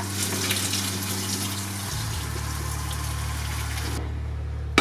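Hot pasta water being poured off from a steel pot into the sink: a steady gush that stops about four seconds in, then a sharp knock near the end as the pot is set down, over a steady low hum.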